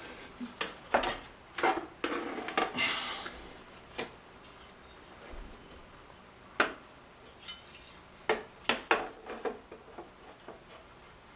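Metal and plastic parts of a washer door hinge clinking and knocking as they are handled and fitted together: about ten sharp, irregularly spaced clicks.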